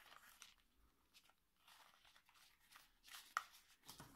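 Faint plastic clicks and rustles of a pair of foldable Bluetooth over-ear headphones being folded up by hand. The sharpest click comes a little after three seconds in.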